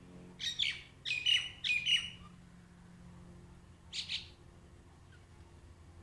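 Common mynas calling: three short calls in quick succession, then one more about four seconds in.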